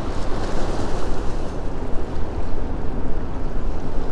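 Steady wind buffeting the microphone over the wash of choppy river water, heaviest in the low end, with no clear engine note.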